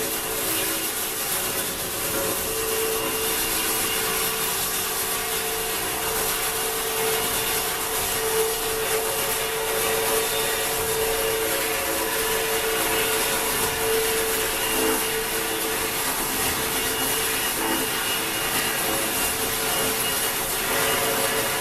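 A woodworking power machine running steadily while it cuts into wood, a continuous rasping noise over a steady motor whine.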